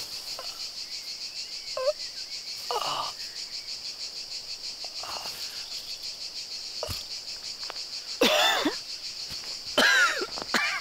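Insects chirring in a steady, pulsing drone. Over it, a man gives strained, wordless gasps and sobbing cries every few seconds, the loudest about eight and ten seconds in.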